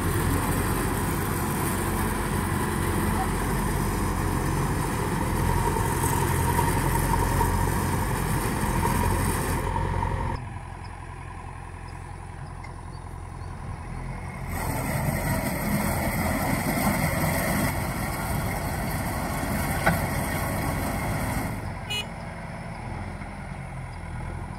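JCB backhoe loader's diesel engine running as the machine works, a steady low rumble. It drops abruptly about ten seconds in, comes back up about four seconds later and drops again near the end, with one sharp knock a little before that.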